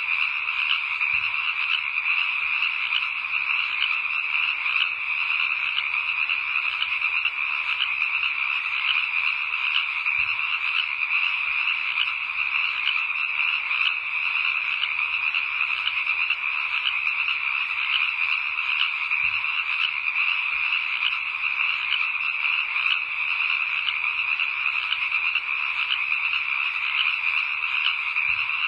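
A steady, dense chorus of frogs calling, a continuous trilling that neither builds nor breaks.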